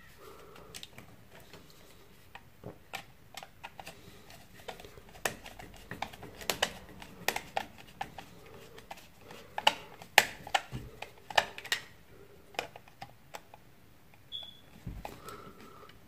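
Irregular small clicks and ticks of a screwdriver working the terminal screws on the back of a double socket, tightening down the live and neutral wires.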